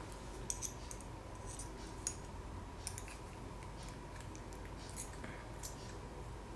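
Small, irregular metallic clicks and ticks of pliers gripping and twisting a thin titanium strip, working its two ends together so they meet, over a faint steady hum.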